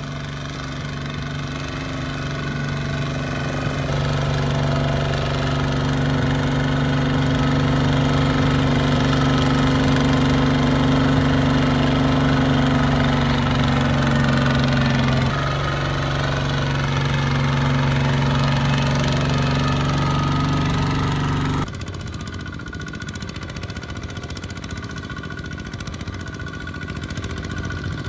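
Single-cylinder diesel engines of two-wheel walking tractors running steadily under load while hauling loaded rice trailers through deep mud. The engine note and loudness change abruptly a few times as the sound jumps from one tractor to another.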